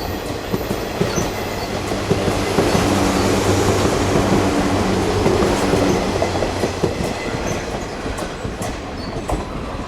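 An electric train running past along the track, its wheels clattering over the rail joints. A steady low hum swells to a peak in the middle and fades near the end.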